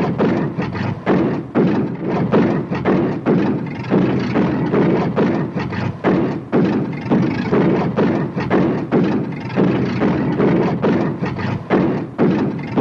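Old car engine running rough with a fault, likely a misfire, sputtering in uneven pulses about twice a second.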